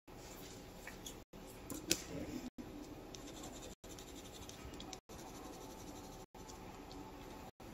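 Faint scratching of a coloured pencil on paper as a picture is coloured in, with a few sharp clicks, the loudest a little before two seconds in.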